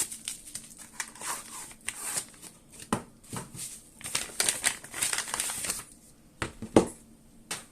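Irregular rustling and crinkling, as of packaging, with a few sharp clicks and knocks as a gas blowback airsoft magazine is handled. The rustling thins out in the last second or two.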